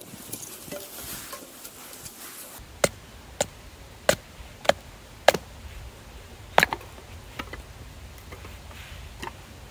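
Firewood being split for kindling: a series of sharp wooden knocks, roughly one every half second to second, mostly in the middle of the stretch, over a steady background rush.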